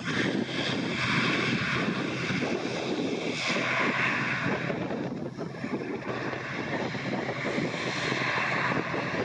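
Twin-turboprop ATR 72-600 airliner taxiing, its Pratt & Whitney PW127 engines and propellers giving a steady loud whine over a rushing roar.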